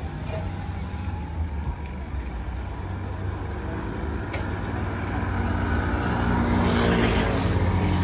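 Motor vehicle engine running nearby over street noise, growing louder over the last few seconds as it draws closer.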